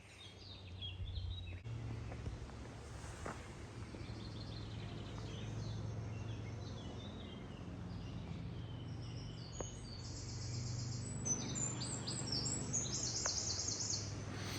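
Several small birds singing and chirping, with quick repeated trills growing busier in the second half, over a steady low hum.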